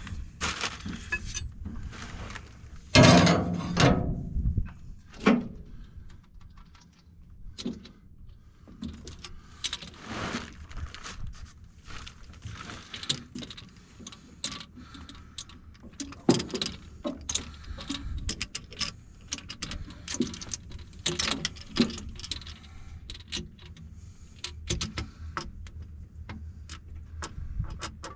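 A wrench clinking and knocking against the hydraulic hose fittings of a Cat 312 excavator as they are tightened: scattered metal clicks and taps throughout, with a louder clatter about three seconds in.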